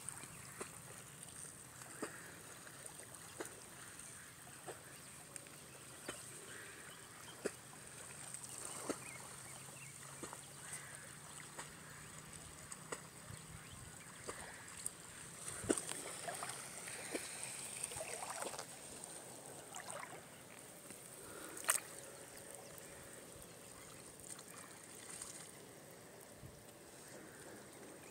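Small ripples lapping and trickling against a rocky shoreline in shallow, calm sea water: faint, with scattered little plops and splashes.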